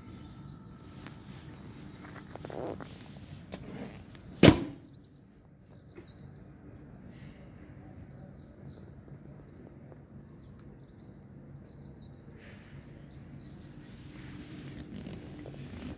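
A single sharp thunk about four and a half seconds in, the motorcycle's hinged seat being shut over the under-seat compartment. After it, small birds chirp faintly over a low outdoor background.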